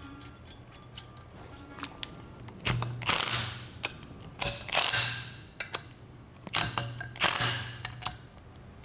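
Cordless power driver spinning bolts through a bracket into a Saginaw power steering pump in several short bursts, each under a second, after a few light clicks of the bolts being set.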